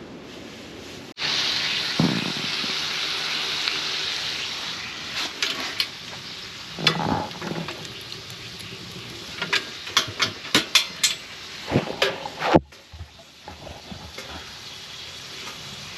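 Potato sausage sizzling in a cast iron pan, starting suddenly about a second in, followed by a string of clinks and knocks of a utensil against the pan.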